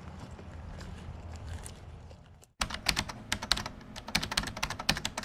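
A low steady rumble with faint ticks. About two and a half seconds in it cuts off suddenly, and a loud, rapid, irregular run of sharp clicks, much like keyboard typing, takes over.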